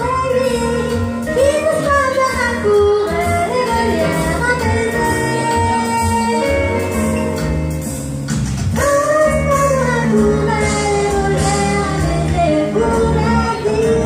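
A woman singing over instrumental accompaniment, holding long notes that bend and slide between pitches, with steady bass notes underneath.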